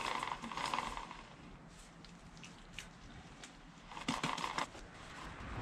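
Cloth rubbing against a motorcycle's drive chain and rear sprocket as the chain is wiped clean: a scrubbing rustle through the first second and again about four seconds in, with faint ticks between.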